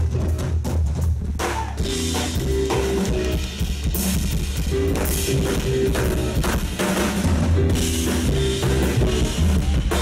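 Live jazz band playing an instrumental passage: upright double bass line under a drum kit, with the drums and cymbals coming in strongly about a second and a half in.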